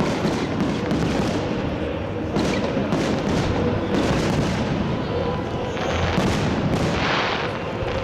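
Fireworks salute going off: a dense, unbroken run of booms and cracking bursts, one after another.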